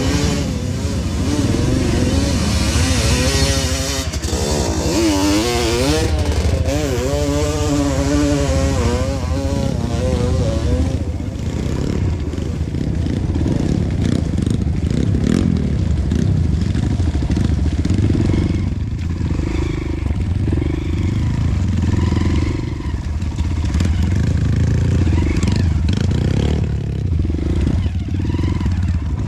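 Honda CRF150L trail bike's single-cylinder four-stroke engine under way. Its revs rise and fall over the first ten seconds or so, then it runs at lower, steadier revs, with some clatter from the bike.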